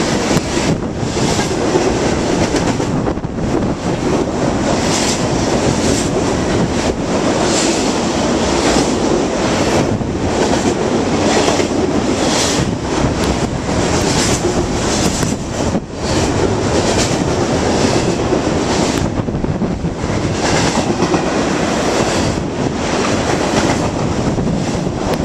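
BNSF freight train passing underneath at speed, over 50 mph: a loud, steady rush of steel wheels on rail with repeated clacks as the cars go by.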